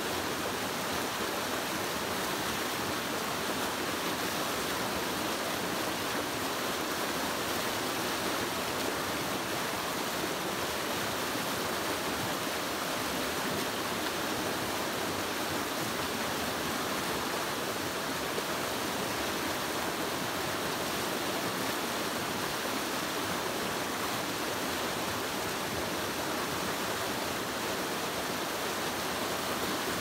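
Creek rapids: water rushing over a low rocky cascade in a steady, unbroken rush.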